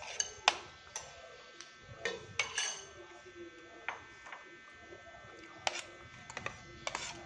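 Metal fork and spoon clinking and scraping against a plate while eating, as a string of irregular sharp clicks, with a cluster of them near the end.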